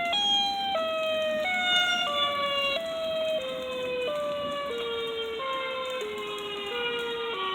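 Outdoor storm warning siren wailing, one steady tone with its pitch stepping down bit by bit as it starts to wind down.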